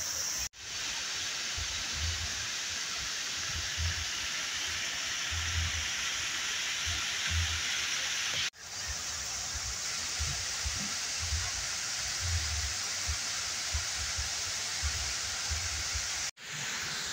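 Waterfall rushing in a steady, dense hiss with uneven low bumps underneath. The sound cuts out and fades back in three times: about half a second in, about eight and a half seconds in, and near the end.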